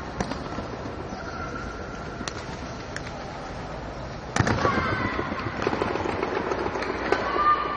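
Pencak silat pair routine: a few sharp slaps from strikes and blocks, then from about four and a half seconds in a louder stretch of dense crackling slaps and thuds as one fighter is thrown to the mat, with voices in the hall.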